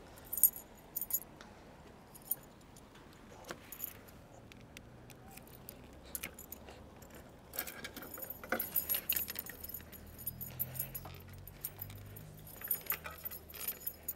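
Light metallic jingling and clicking in scattered short bursts, busier in the second half, with a sharp clink about half a second in. A faint low rumble runs underneath from about eight seconds.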